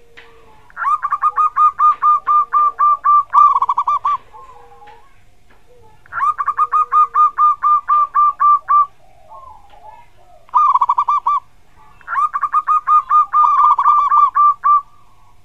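Zebra dove (perkutut) singing: three long runs of rapid, evenly spaced cooing notes, each about three seconds long, with a short burst between the second and third.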